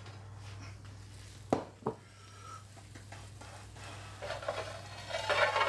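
Kitchen handling sounds: two sharp knocks about a second and a half in, as a ceramic bowl of chicken bites is set down on a wooden chopping board, then a longer stretch of handling noise near the end, over a steady low hum.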